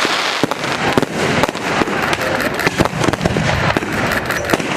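Fireworks going off: a rapid, irregular run of sharp bangs and pops, several a second, over continuous crackling hiss.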